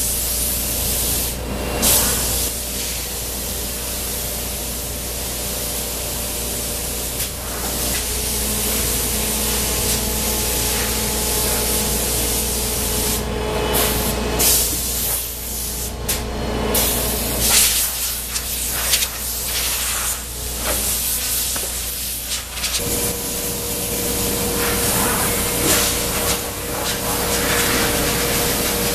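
Three-head CNC router cutting stacked 1/8-inch styrene sheets: a steady spindle whine over a constant hiss, with the cutting noise swelling and easing as the bits move through the plastic.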